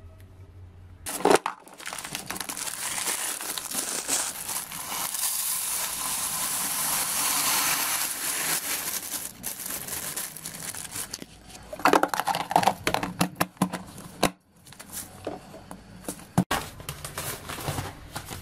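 Dry red lentils pouring from a plastic bag into a plastic storage container, a steady rushing hiss for about ten seconds. Then the plastic bag crinkles and rustles as it is handled.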